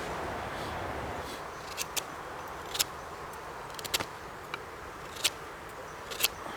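Scandi-ground bushcraft knife carving a feather stick: a series of short, sharp clicks and snicks as the blade bites and shaves curls off the wood, irregularly spaced, about seven in all, over a steady outdoor hiss.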